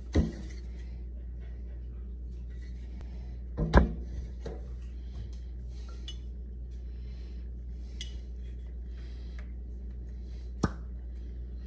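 Glass bottle handled at a stainless steel sink: three short knocks and clinks, the loudest about four seconds in, with light rustling over a steady low hum.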